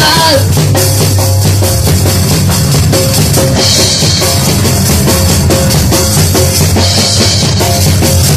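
Live punk band playing an instrumental passage: the drum kit keeps a steady beat over the bass, with two short bursts of cymbal wash, about four seconds in and again near seven seconds. The singing stops just as it begins.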